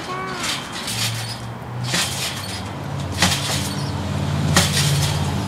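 Trampoline springs and mat clanking and jingling sharply with each bounce, three times about a second and a quarter apart, as a jumper builds height. A steady low hum runs underneath from about a second in.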